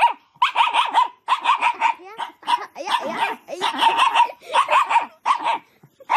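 A dog whining and yelping in a fast string of short, high, wavering calls, about two a second.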